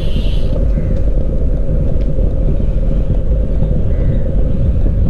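Steady low rumble of wind and road noise while riding a bicycle.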